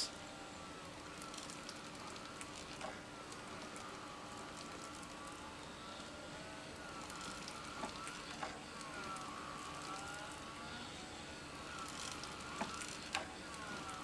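Small 25 RPM geared window drive motor running faintly as it turns a crank linkage that pumps a pleated bellows back and forth, its whine wavering up and down in pitch as the load changes, with a few light clicks.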